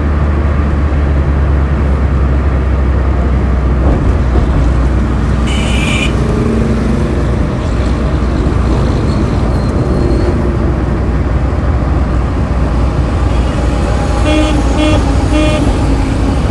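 Road traffic with a steady low engine rumble. A vehicle horn sounds briefly about five and a half seconds in, and a horn gives three quick toots near the end.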